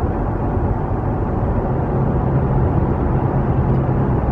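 Steady road noise inside a vehicle's cabin at highway speed, a low rumble of tyres and engine. A low, steady engine hum comes in about two seconds in.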